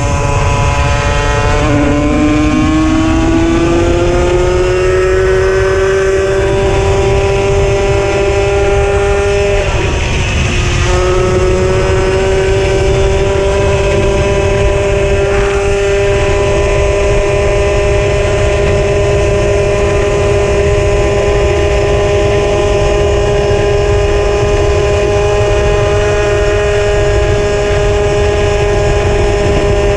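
Puch Maxi moped's 49cc two-stroke engine running under way, with wind buffeting the microphone. The engine note drops and climbs again in the first few seconds, dips briefly around ten seconds in, then holds steady.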